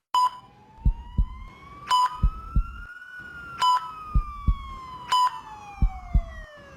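ICU patient-monitor sound effect: a short electronic beep about every 1.6 seconds, each followed by a double heartbeat thump. A siren-like tone slowly rises for about three seconds and then falls away.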